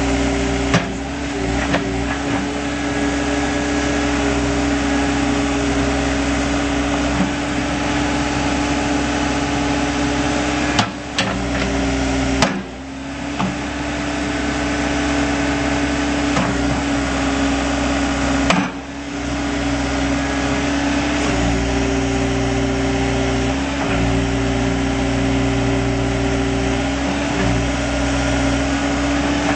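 Diesel engine of a 2005 Case 590SM Series 2 loader backhoe running steadily with a strong even tone, its load shifting a few times. A few sharp knocks and brief dips break it, about a third and about two thirds of the way through.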